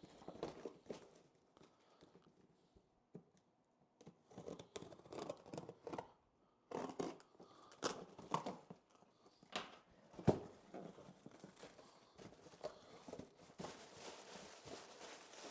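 A cardboard shipping box being opened and its contents handled: irregular tearing and rustling with scattered clicks and knocks, one sharper knock about ten seconds in.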